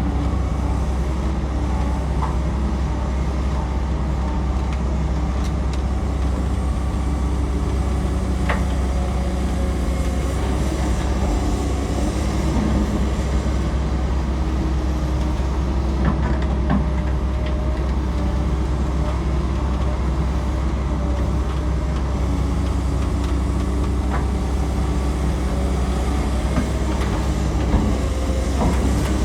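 Excavator's diesel engine running steadily, with a few short knocks from the machine's work.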